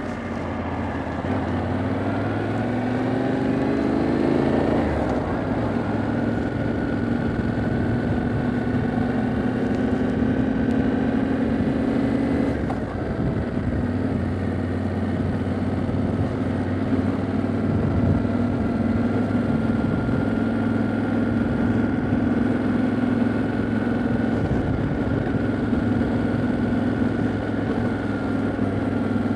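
Yamaha Ténéré 700's 689 cc parallel-twin engine under way on the road: its revs climb for the first few seconds, fall back about five seconds in, then hold steady at a cruise.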